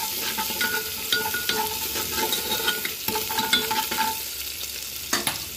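Chopped garlic and ginger with cumin and mustard seeds sizzling in hot oil in a pressure cooker, stirred with a spatula that scrapes and clicks against the pot. A sharper knock comes near the end.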